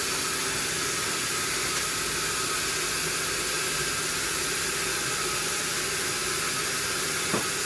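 Sawmill machinery running steadily: a constant hiss with a faint steady hum, and a single short click near the end.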